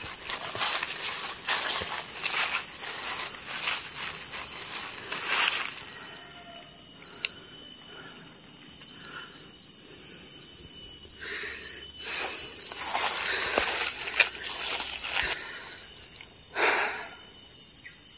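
Footsteps on dry leaf litter, about one step a second, over a steady high-pitched insect drone. The steps thin out about six seconds in, with a few scattered rustles and knocks later.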